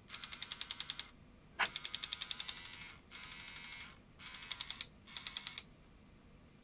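JVC HR-S8600EK S-VHS deck's dynamic drum motor and gearing, run on 5 V in short bursts each way, chattering with rapid ticks about ten a second in five runs. It is a little chattery but works; the dynamic drum gears, known to split or strip, are suspected of making the noise.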